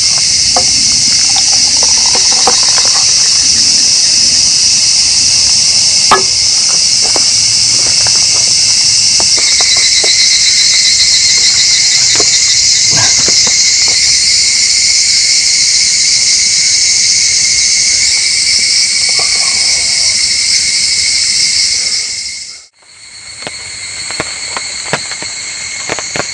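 Loud, steady chorus of insects chirring at a high pitch, with scattered light taps. It cuts out abruptly for a moment near the end, then comes back.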